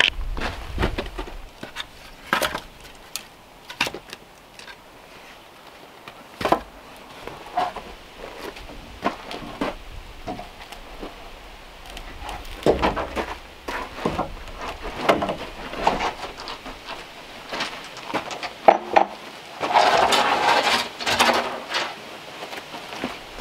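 Scattered wooden knocks and clunks as short log rounds and a long wooden board are handled, with footsteps on gravel. A denser rough rustling lasts about a second and a half near the end.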